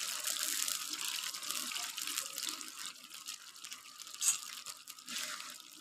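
Mutton pieces sizzling in hot ghee and freshly added water in a pan, a steady hiss that slowly fades, with a short high click about four seconds in.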